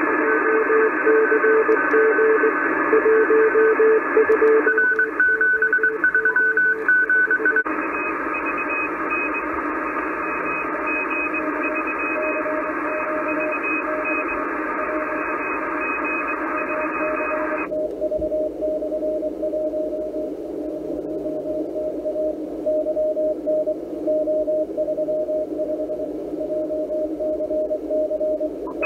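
ICOM IC-746 HF transceiver receiving Morse code on the 17-metre band: receiver hiss with several keyed Morse tones at different pitches. About two-thirds of the way through, the 500 Hz FL-100 CW filter switches in: the hiss suddenly narrows, the higher-pitched signals drop out, and one Morse signal keeps beeping.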